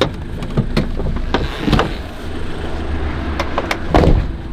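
Clunks and knocks of someone climbing out of a van's cab over a low steady rumble, with a louder thump about four seconds in.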